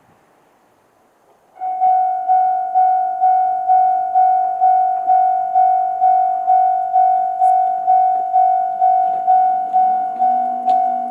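Japanese level-crossing warning bell, the electronic JR Central-type tone, starting about a second and a half in and ringing in even strikes a little over two a second, each strike fading quickly. The ringing means the crossing is warning of an approaching train.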